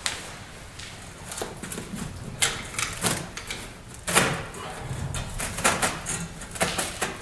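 Deflated suspension air bag being worked by hand into a truck's front coil spring: irregular scraping, rustling and knocks of the bag and fingers against the coil.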